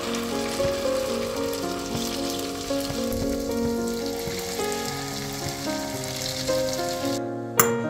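Cabbage patties frying in hot oil in a non-stick pan: a steady sizzle, heard under background music. The sizzle cuts off near the end and a single sharp click follows.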